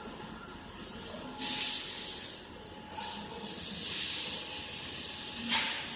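Bursts of loud hissing: one starting about a second and a half in, a longer one from about three seconds, and another near the end, over a faint steady hum.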